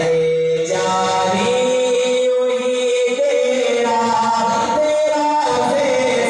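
A man sings a naat, an Urdu devotional poem, unaccompanied. He holds long, sustained notes with short pauses between phrases.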